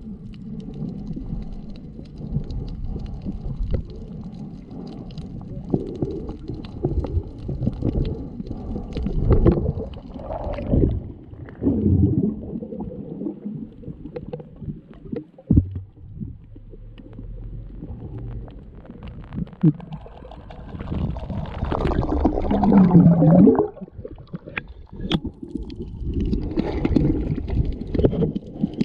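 Muffled rumbling and gurgling of sea water around a camera held underwater, with swells and bubbling and a louder surge near the end.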